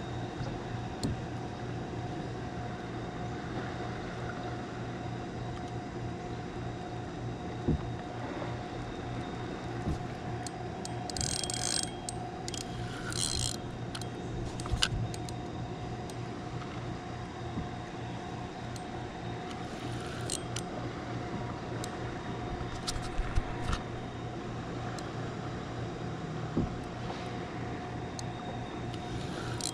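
Spinning reel being cranked steadily to reel in a hooked fish, a continuous gear whirr with scattered light clicks and a couple of brief hissy rasps about 11 and 13 seconds in.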